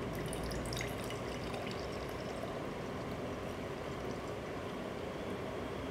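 Thick blended fruit juice poured in a stream into a glass mason-jar mug, over a steady background hiss.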